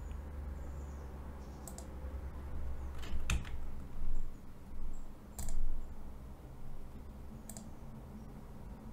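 Computer mouse and keyboard clicks: a few separate sharp clicks a second or two apart, over a low steady hum.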